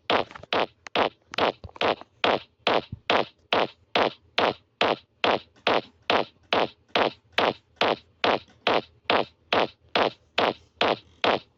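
A fart-like sound repeated in a fast, even rhythm, about three times a second, each one a quick sweep down in pitch.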